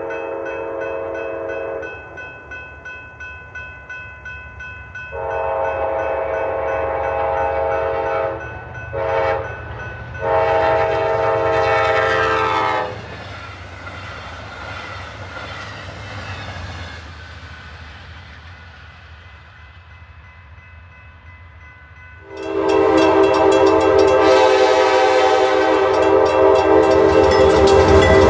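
A passing Amtrak train's horn sounds the long, long, short, long grade-crossing signal over a ringing crossing bell, then the train rushes past with a fading roar of wheels on rail. About 22 seconds in, a diesel locomotive's horn starts a loud held blast over the engines' low rumble.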